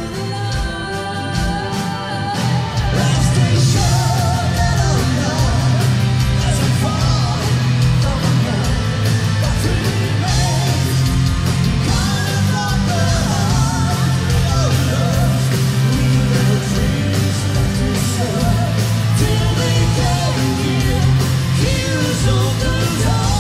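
A live symphonic metal band playing at full volume, with drums and guitars under a female and a male singer singing together. The band swells to full loudness about two and a half seconds in.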